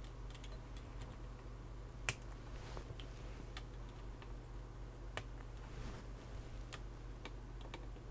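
Flush side cutters snipping the excess wire leads off freshly soldered resistors on a circuit board. It sounds as a string of short, sharp clicks, the loudest about two seconds in, over a low steady hum.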